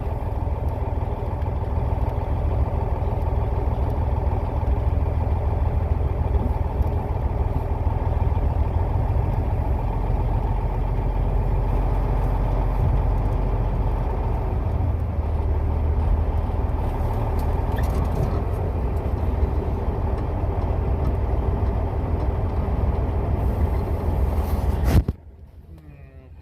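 Cummins N14 inline-six diesel of an International 9400 truck running steadily at low speed, heard from inside the cab. The sound cuts off abruptly near the end.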